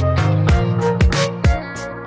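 Background music with a steady drum beat, about two hits a second, over sustained melodic notes.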